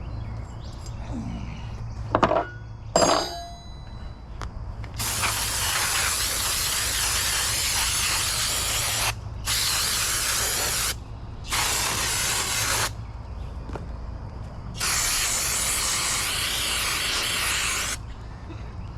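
Two sharp metallic clinks, then an aerosol spray can hissing in four long bursts, the first and last each several seconds long.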